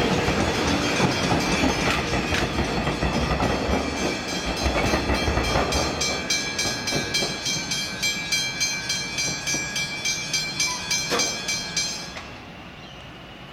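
An electric suburban train runs past and away along the track, wheels clacking on the rails, while the level crossing's warning bells ring in a steady rhythm of about two strikes a second. The bells cut off suddenly about twelve seconds in as the crossing clears.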